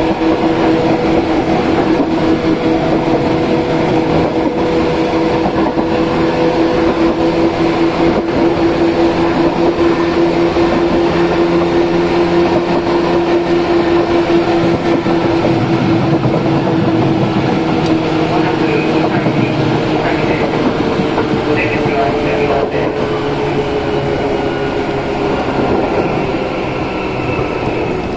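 Running sound inside an Izu Kyuko 8000 series electric train: the steady low-pitched tones of its Hitachi-built chopper control and traction motors over the rumble of the wheels on the rails. In the second half the tones slowly fall in pitch and the sound eases a little as the train slows.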